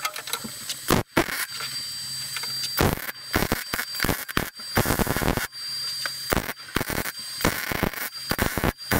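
MIG welder arc crackling and hissing as steel discs are welded into holes in a thick steel locomotive frame plate and the holes are filled with weld. It goes in a series of short runs, the arc starting and stopping several times.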